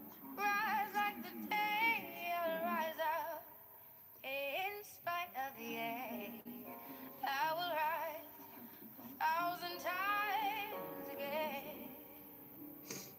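A recorded pop song playing: a female lead voice sings phrases with wavering held notes over backing music, with short gaps between the lines.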